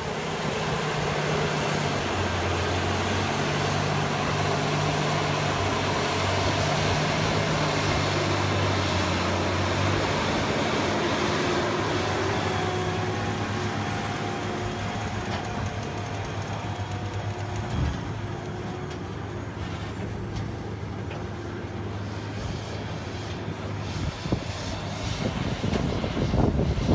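Large articulated four-wheel-drive tractor's diesel engine working under load while towing tandem K-Tec pull-type scrapers that cut and load dirt: a steady low drone. A faint high whine slides down and fades about halfway through, and the rumble grows louder near the end.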